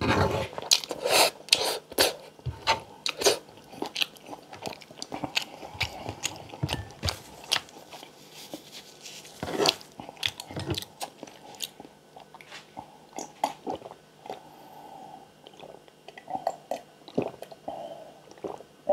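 Close-miked chewing of crunchy food, with crisp crunches coming thick and fast for the first several seconds, then slower, sparser chewing.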